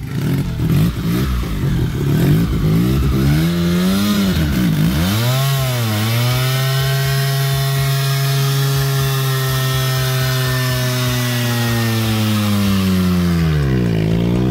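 Suzuki RE5's single-rotor Wankel rotary engine revving hard during a burnout, the rear tyre spinning and hissing on the tarmac. The revs dip and climb back twice about five seconds in, hold high and steady, then dip and rise again near the end.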